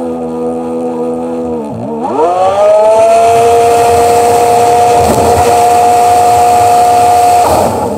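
Sea-Doo personal watercraft engine under way. Its pitch dips briefly as the throttle eases, then climbs sharply to full throttle about two seconds in and holds a high steady tone over the hiss of rushing spray, easing off again near the end.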